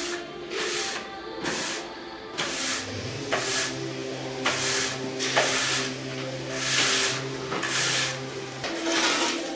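Wide push broom sweeping sawdust across a workshop floor in quick, regular strokes, about one every three quarters of a second. Background music plays under it.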